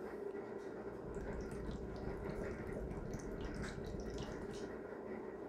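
Plexiglass hookah's water base bubbling steadily as smoke is drawn through the hose.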